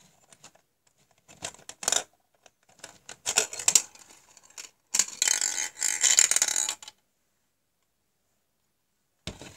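Plastic spiral gumball machine being worked: clicks and clatter from the dispenser, then a gumball rattling down the spiral plastic chute for about two seconds.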